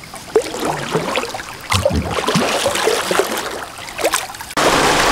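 River water trickling and gurgling around a kayak, with small splashes and a low thump about two seconds in. Near the end it switches abruptly to the steady rush of faster-flowing current.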